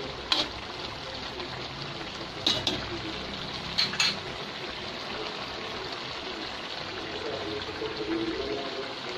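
Cassava leaves in coconut milk simmering in a pot, bubbling steadily. A few sharp clicks come in the first four seconds, two pairs of them close together.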